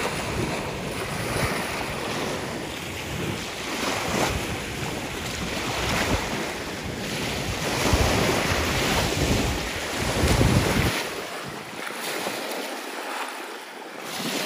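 Lake Erie waves washing onto the shore, rising and falling in swells, with wind buffeting the microphone; the low wind rumble drops out near the end.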